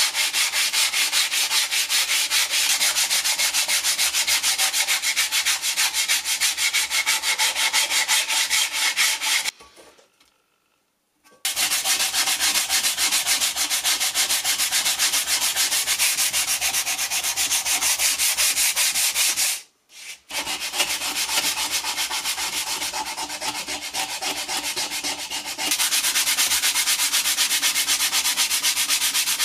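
Sandpaper rasping against the rusty steel blade of a foxtail handsaw in quick back-and-forth hand-sanding strokes, taking the rust off. The scrubbing stops for about two seconds around ten seconds in and briefly again near twenty seconds, and is a little softer for a few seconds after that.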